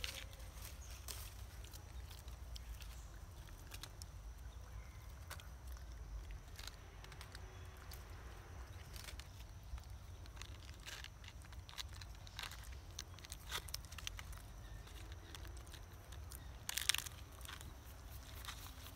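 Faint outdoor ambience: scattered soft crackles and clicks over a steady low rumble, with a brief louder rustle near the end.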